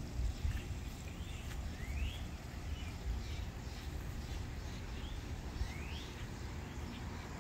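A songbird whistling nearby: a short rising note followed by a longer rising whistle, given twice about four seconds apart, over a steady low rumble.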